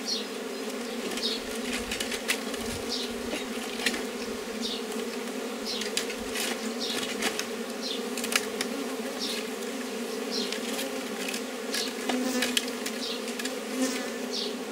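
Honeybees buzzing steadily, a low even hum, with scattered small clicks and crinkles from a plastic bottle strip being wound and knotted around a wooden fence rail.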